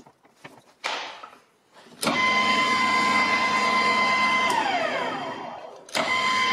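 A few light handling clicks at the chuck. About two seconds in, the EMCO Maximat Super 11 metal lathe is switched on and its motor and gear train run with a steady whine. The whine then glides down as the spindle winds down; a click follows near the end and the lathe starts up again at full speed.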